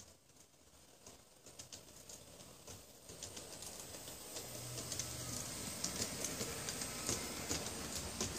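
Two Piko G-scale model steam locomotives running along the track, with a thin high whine and a rattle of irregular clicks from the running gear and track that grow steadily louder as they draw closer.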